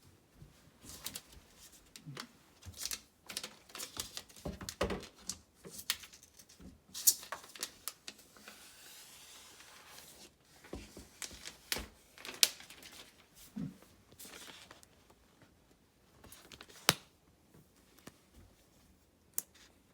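Packaging of a new iPad Pro being handled: paper and plastic wrapping crackling and tearing, with scattered sharp clicks and taps and a steadier hiss for about two seconds near the middle.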